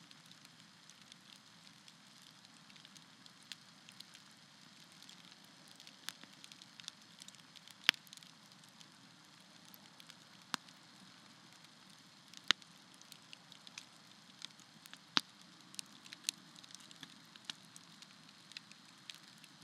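Wood campfire burning with a soft steady hiss and scattered crackles, with four sharp, loud pops standing out in the middle stretch.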